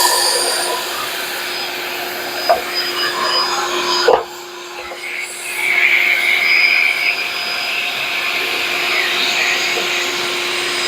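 Shop vacuum running steadily, drawing through the dust collection hose on a pocket hole jig, with a constant hum. A couple of sharp knocks come about two and a half and four seconds in, and a higher whine rises over the hum from about six to seven seconds in.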